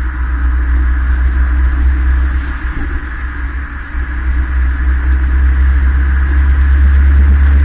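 Borla aftermarket exhaust on a 2013 Hyundai Veloster Turbo's 1.6-litre turbocharged four-cylinder, heard while the car is driven on the road. It is a steady, loud, deep rumble that swells over the last few seconds.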